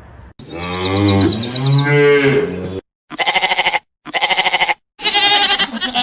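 A cow mooing once, a long low call that rises and falls, followed after a short silence by three short, quavering farm-animal bleats.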